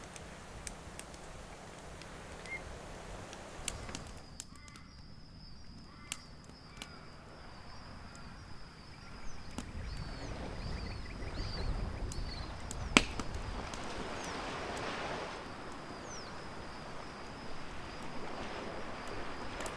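Wood campfire crackling with scattered sharp pops, and from a few seconds in a thin steady high whine with a few faint short chirps over soft outdoor ambience.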